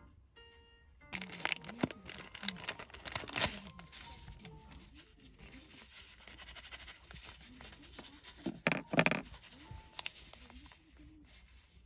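Plastic wrapper of a disposable hand warmer torn open and crinkled: sharp ripping and crackling rustles over the first few seconds, then another short rustle about nine seconds in.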